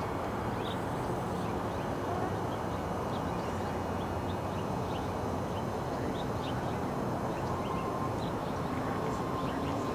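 Steady outdoor background noise with many short, high bird chirps scattered through it.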